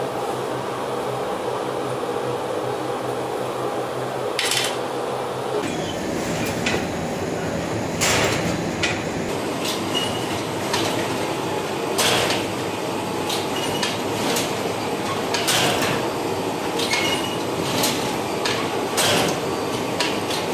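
Bakery machinery running: a steady motor hum at first, then, after an abrupt change about six seconds in, a lavash dough-sheeting machine's rollers and chain drive running with a rattle and irregular clacks and knocks.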